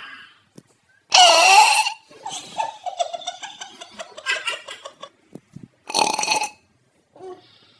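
Burps pitched up high by a chipmunk effect: a loud one about a second in and another near six seconds, with quieter broken, high-pitched sounds between.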